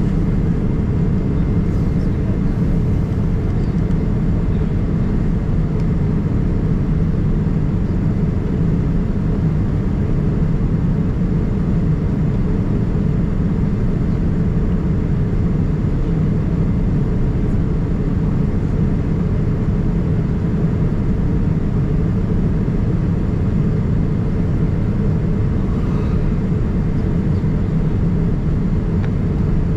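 Steady low rumble of cabin noise inside a Boeing 787-9 Dreamliner with its engines running.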